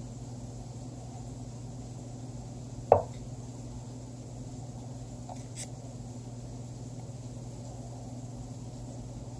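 One sharp wooden clack about three seconds in: the lichess.org chess site's move sound as a piece is played. A steady low electrical hum runs underneath.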